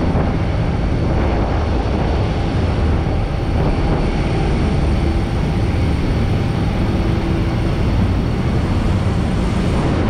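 Steady drone of a ship's engines under the rush of its wake and the rough sea against the hull.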